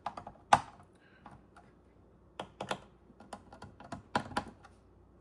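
Scattered light clicks and taps of small cooler mounting hardware being handled, with one sharper click about half a second in and a few clusters of clicks later.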